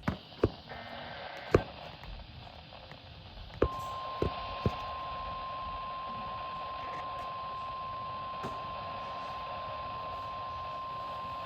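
Weather radio receiver hissing with a few sharp clicks, then about three and a half seconds in a single steady alert tone starts and holds. It is the warning alarm tone that announces an incoming severe thunderstorm warning.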